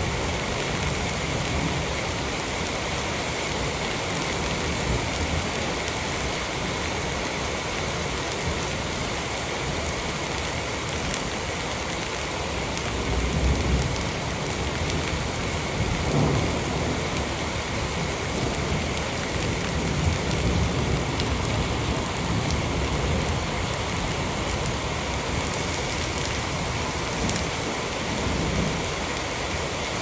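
Steady rain falling on a wet concrete slab, an even hiss throughout, with a few short low rumbles around the middle.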